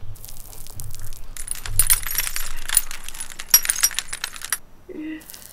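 Metal spoon scraping and clicking as it scoops firm ice cream out of a tub: a quick run of scrapes starting about a second in and stopping near the end. A short hummed "mm" follows.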